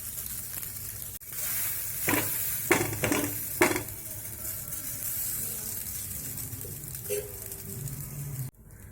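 Cooked rice sizzling in ghee in a pan as it is stirred with a spatula, with a few knocks of the spatula against the pan about two to four seconds in. The sizzle cuts off suddenly near the end.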